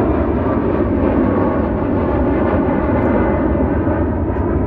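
A Boeing 737 MAX 8 airliner's CFM LEAP-1B turbofan engines, loud and steady as it departs at takeoff power, easing off slightly near the end.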